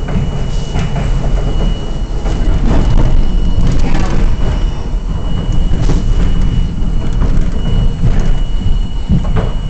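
R42 subway car heard from inside while running on the track: a loud steady rumble of wheels on rail, with repeated clacks and rattles from the car and rail joints and a thin high whine over it.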